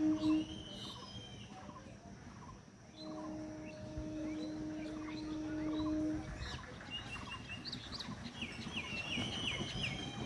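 EMU local train's horn: a pulsing blast cuts off just after the start, then one long steady blast sounds about three seconds in and lasts about three seconds. Birds chirp throughout, busiest near the end.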